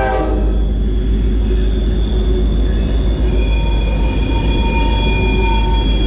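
A train passing close by: a heavy low rumble under a steady, high-pitched squeal of several held tones from the wheels on the rails.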